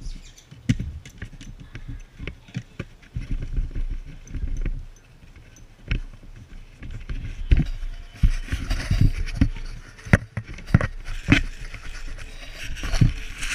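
English setter puppies licking and nosing a peanut-buttered GoPro right against its housing: irregular knocks, scrapes and wet licking noises, with sharper, busier scraping in the second half.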